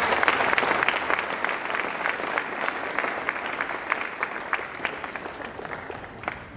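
Audience applauding, the clapping slowly dying away over several seconds.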